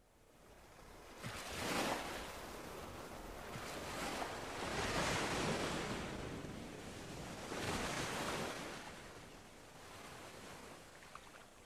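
Gusty wind blowing over the microphone, a rushing noise that swells and falls in three surges a few seconds apart.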